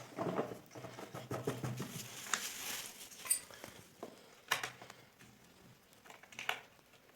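Scattered light clicks, taps and rustling of hand tools and metal parts being handled while the carburettor is being taken off a small alfalfa-mower engine.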